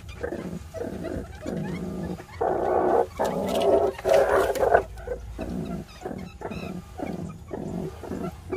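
Meerkats calling in a run of short, rhythmic grunts, about three a second, with a louder, harsher stretch near the middle.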